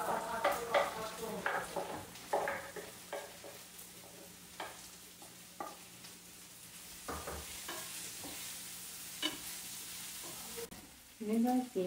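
Vegetables frying and sizzling in a pan as chopped vegetables are scraped in from a wooden cutting board and stirred with a wooden spatula, with scattered knocks of the spatula against the pan. The sizzle grows louder toward the end and then cuts off suddenly.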